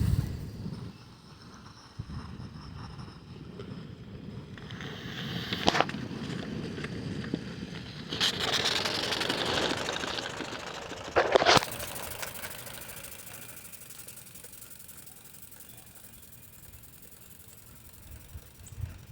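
Mamod Brunel live-steam tram engine running: steam hissing and mechanical clatter that gradually fade, with a couple of sharp clicks about six and eleven seconds in.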